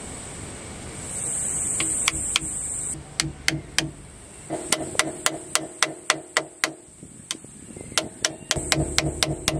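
Hammer tapping a new pinion oil seal evenly around its rim to seat it in a Toyota Landcruiser HZJ75 differential housing. The sharp, light taps start about two seconds in and come in runs of about three a second, with a brief pause near the seven-second mark, over a steady high-pitched buzz.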